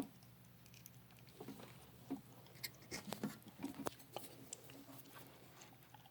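Faint, irregular small clicks and taps of meter test leads and clips being handled, while an analog ohmmeter is being zeroed. A steady low hum sits underneath.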